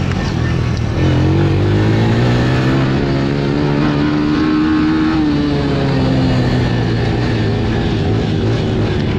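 Honda TRX90 ATV's small four-stroke single-cylinder engine running under throttle, heard close up from the rider's helmet. The engine note picks up about a second in, climbs slowly, then eases off a little after about five seconds.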